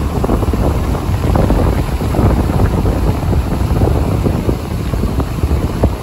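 Creek water rushing over a low weir, a loud steady rush full of small splashes.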